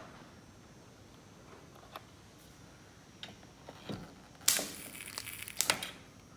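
Stud welder firing a dent-pulling pin onto the panel: a sudden loud burst lasting under a second about four and a half seconds in, then a sharp click. Before that there are only a few faint handling clicks.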